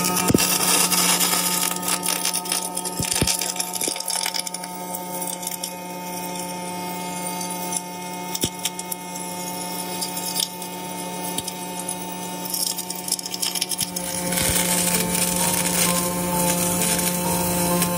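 Lincoln Electric HyperFill twin-wire MIG welding arc burning steadily: a continuous crackling hiss full of small pops. It gets louder again in the last few seconds.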